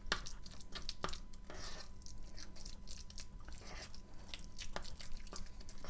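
Crumbled chalk being stirred into soaked chalk paste: a run of irregular crunchy clicks.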